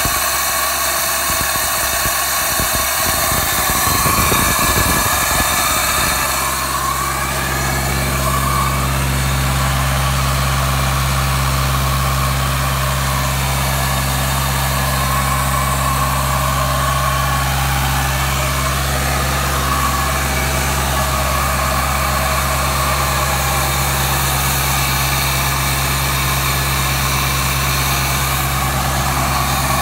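Engine of a trailer-mounted portable air compressor running. About six seconds in it settles into a steady, even idle.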